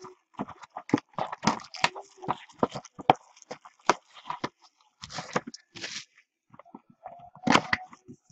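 Plastic shrink wrap on a cardboard box crackling and tearing in quick irregular bursts as it is pulled off by hand, with a louder rustle near the end.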